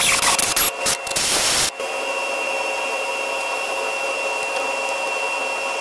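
Power tool running at a steady speed, a whine over a hiss, driving a thread tap on a socket extension into a drilled pin hole in a cast-iron Ford 300 cylinder head. In the first second and a half the sound is broken by several abrupt cuts; after that it runs evenly.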